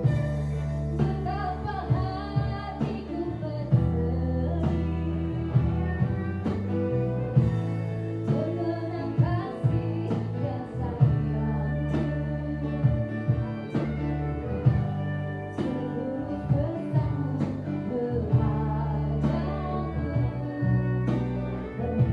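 A song sung with band accompaniment: a vocal line over steady bass notes, guitar and a regular drum beat.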